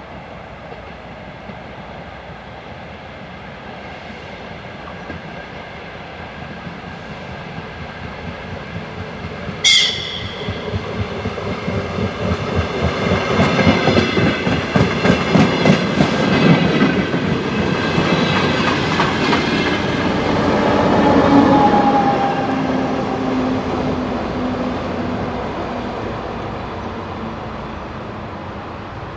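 DR1AM diesel multiple unit approaching and passing, growing steadily louder and then fading away. A short, sharp horn blast sounds about ten seconds in. It is followed by a regular clickety-clack of the wheels over the rail joints as the train goes by.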